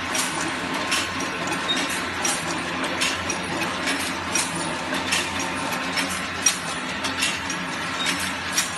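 Jacquard loom weaving polypropylene (PP) plastic mat, running steadily with a regular clatter of sharp clacks, about one or two a second, over a constant mechanical hum.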